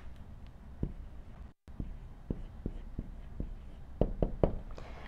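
Dry-erase marker writing on a whiteboard: a string of short strokes and taps as a word is written out, with the audio cutting out briefly about one and a half seconds in.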